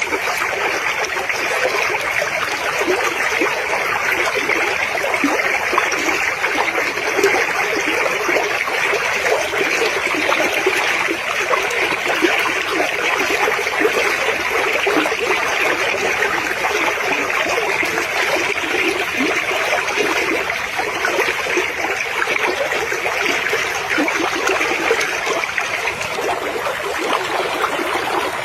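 Water of a stream flowing steadily, a continuous rushing trickle without pauses.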